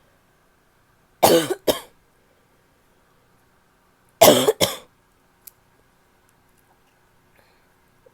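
A woman's barky cough: two bouts of two quick coughs each, about three seconds apart.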